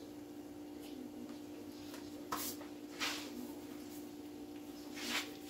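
Chicken pieces frying in oil and butter in a frying pan: a faint sizzle with three short, louder hisses about two, three and five seconds in, over a steady low hum.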